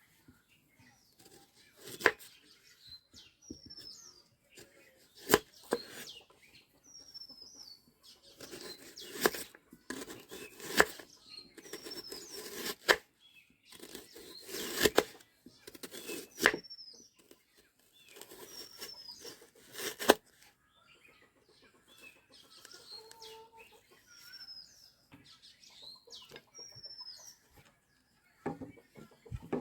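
A chicken flapping its wings in repeated short bursts for about the first twenty seconds, then calmer, with short high squawks throughout.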